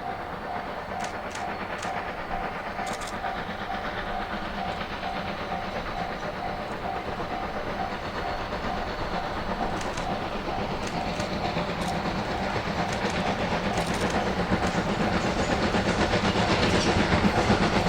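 A level-crossing alarm bell rings in an even repeating clang, about two strokes a second. Under it, steam locomotive D51 200 approaches, its running noise and exhaust growing steadily louder until it drowns out the bell near the end.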